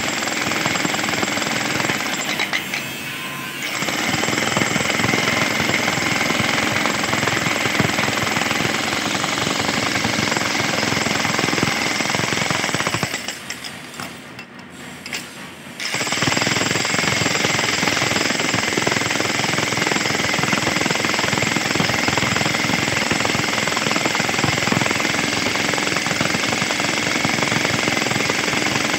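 Handheld electric jackhammer chiselling into concrete with continuous rapid hammering. It eases off briefly about two seconds in, then stops for about three seconds near the middle before starting up again.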